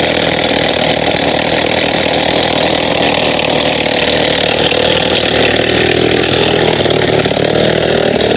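Powered rock breaker hammering into rock, a loud, steady mechanical clatter with no let-up.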